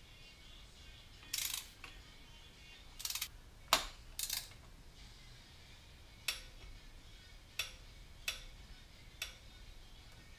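Torque wrench ratcheting as spark plugs are tightened: about eight sharp metallic clicks at irregular spacing, some in short quick runs and some single.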